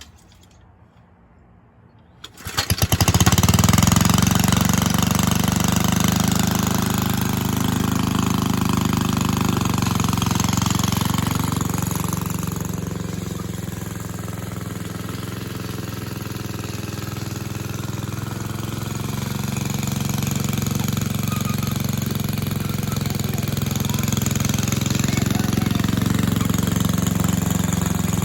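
A 1961 Cooper Klipper reel mower's 2.5 horsepower Briggs and Stratton single-cylinder engine catches about two seconds in and then runs steadily, dipping a little in level midway before picking back up.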